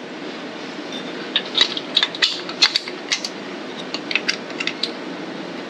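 Small steel bolts and chrome acorn nuts clicking and clinking in the hands as they are fitted to an aluminum engine top plate, about a dozen light metallic ticks over a few seconds, over a steady background hum.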